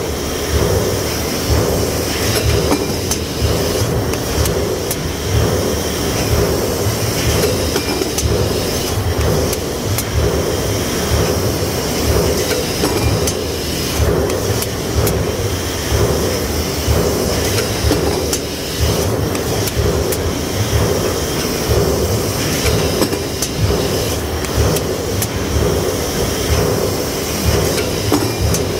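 Steady, loud press-shop machinery noise: heavy industrial presses and their drives running, with scattered metallic clanks and knocks throughout.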